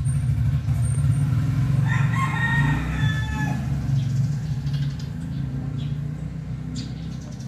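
A single drawn-out animal call starting about two seconds in and lasting about a second and a half, over a steady low hum.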